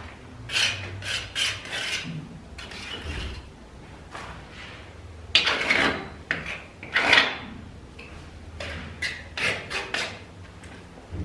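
Plastering tool scraping over a freshly plastered gypsum wall in a series of irregular rasping strokes, the two loudest and longest about halfway through.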